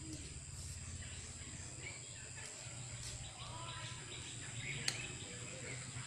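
Garden ambience with a few scattered bird chirps over a steady high insect-like buzz and a low hum, and one sharp click about five seconds in.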